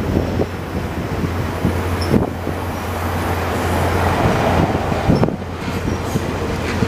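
Stainless-steel passenger cars of VIA Rail's The Canadian rolling past at speed: a steady rumble of wheels on the rails with repeated clacks of the wheels.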